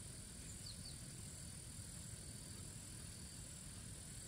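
Steady high-pitched insect chorus over a low rumble, with two faint short chirps about two-thirds of a second in.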